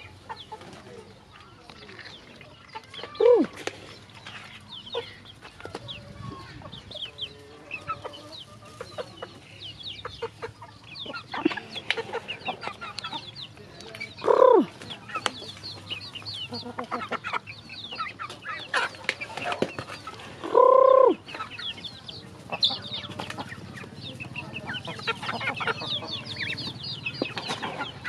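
Chickens calling at a trough feeder: a steady stream of quick high peeps and clucks with scattered clicks, and three louder, longer squawks about three seconds in, about halfway, and about three quarters of the way through, the last one held longest.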